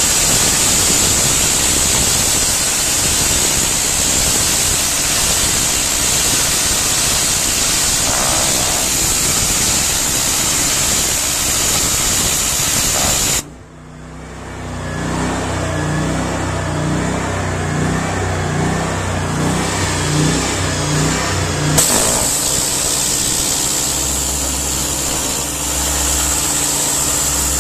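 High-pressure jet of a gas pressure washer with a Honda GX690 engine, hissing steadily over the engine as it blasts paint and rust off a steel barrel. About halfway through the spray cuts off abruptly, leaving the engine and pump running with a slow pulsing beat, and a few seconds later the jet hisses again.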